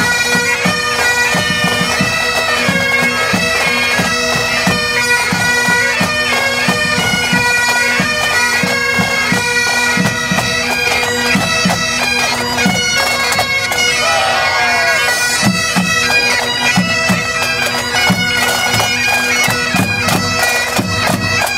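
Great Highland bagpipes playing a tune over their steady drones, with the pipe band's drums beating along.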